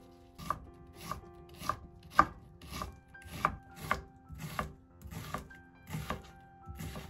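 Kitchen knife chopping an onion on a wooden cutting board: a steady run of sharp strokes, about two a second, one louder than the rest about two seconds in.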